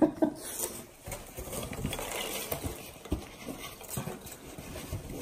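Packing peanuts rustling and a cardboard box being handled, with scattered knocks and scrapes, the loudest knock right at the start.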